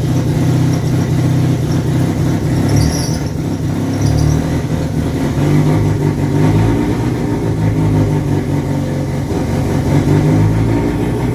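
Chevrolet Cruze engine running steadily on a newly installed FuelTech FT450 standalone ECU, with its speed wavering a little. The sound cuts off abruptly at the end.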